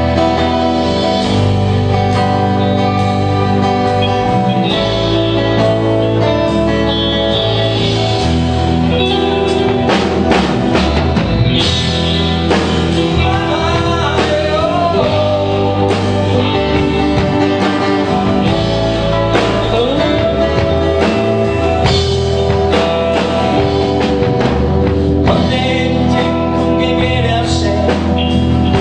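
Live band playing a rock song: electric and acoustic guitars, bass guitar and drum kit.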